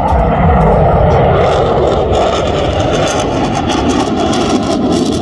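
Lockheed Martin F-22 Raptor's twin jet engines roaring loudly overhead in a display pass, a steady rushing roar with deep rumble and crackle. It swells at the start and holds.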